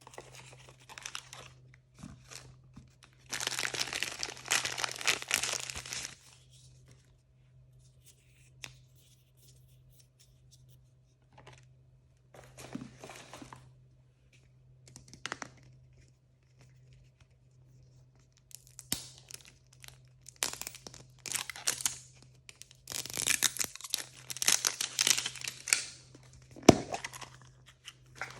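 Blind-bag packaging being torn open and crinkled by hand, in several bouts of tearing and rustling with pauses between, the longest near the start and near the end, and a sharp snap shortly before the end.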